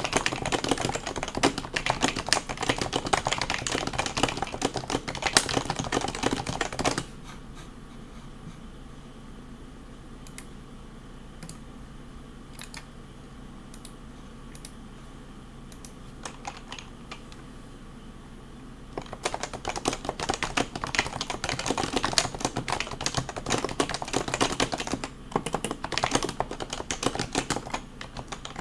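Fast typing on a stock HHKB Professional 2 keyboard with Topre switches, a dense run of keystrokes. About a quarter of the way in the typing stops, leaving only a few scattered key presses for around twelve seconds, then fast typing resumes.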